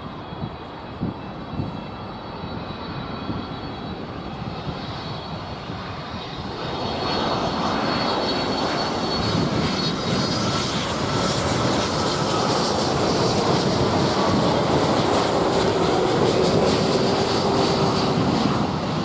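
Boeing 787 Dreamliner's twin jet engines on final approach, a rushing jet noise with a high whine that grows much louder about seven seconds in as the airliner passes low by, then stays loud, with a slowly falling tone near the end.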